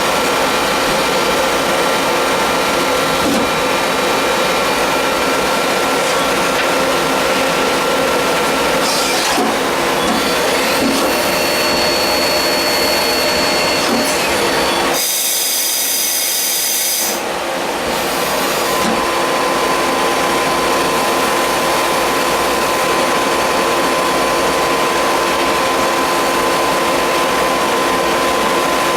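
NC multi-tasking automatic lathe machining metal: steady machine noise with several high whining tones. About 15 s in, a loud hiss cuts in for about two seconds.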